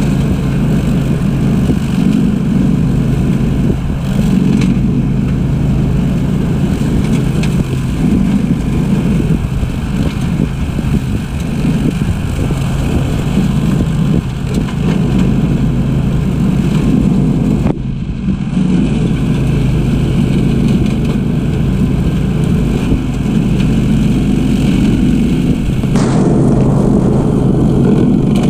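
Old Grillo ride-on mower's engine running steadily under load as it cuts through tall grass, a constant low drone with only a brief dip partway through.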